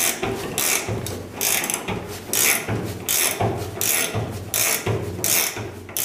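Ratcheting wrench clicking in repeated back-and-forth strokes, roughly two a second, as it turns the screw of a door hinge pin puller to press out a hinge pin.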